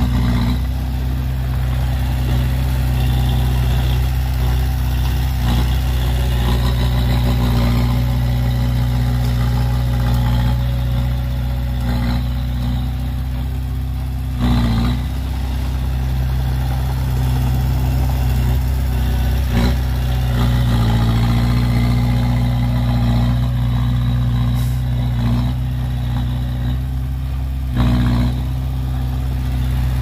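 Komatsu D20A crawler bulldozer's diesel engine running steadily under load as it pushes soil. There are two brief louder surges, one about halfway through and one near the end.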